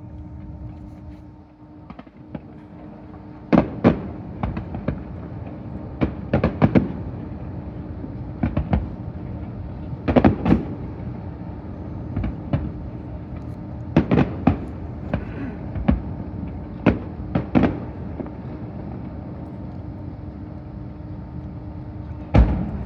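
Fireworks shells bursting in an irregular series of sharp booms, several coming in quick clusters, starting a few seconds in. A steady low hum runs beneath them.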